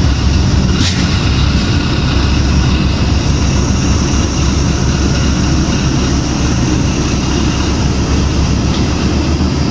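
Inside a 2006 New Flyer D40LF diesel bus under way: the Cummins ISL diesel engine and road noise make a steady, loud low rumble, with a brief click about a second in.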